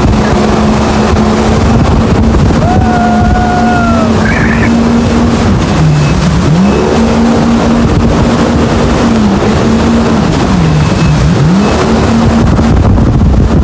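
Jet ski engine running at speed over a rush of wind and spray, its revs dipping and climbing back three times.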